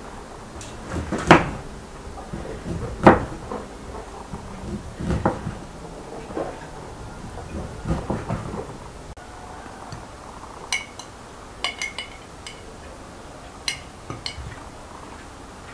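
A serrated knife slices through a lemon, each of about five cuts ending in a knock on the wooden cutting board. From about ten seconds in, a metal spoon clinks sharply against glass several times as it scoops from a glass jar into a glass bowl.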